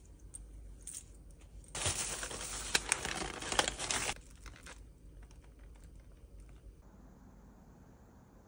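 Plastic and paper bags crinkling as a hand rummages in them, loudest for about two seconds from around two seconds in, then a few lighter rustles. Near the end only faint room tone remains.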